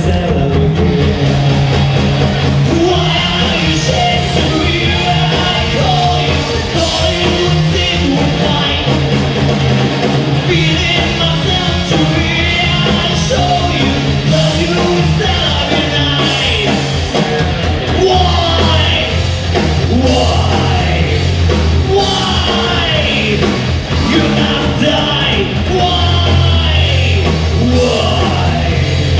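Live rock band playing at full volume: electric guitars, bass guitar and drum kit, with a singer's vocals over them.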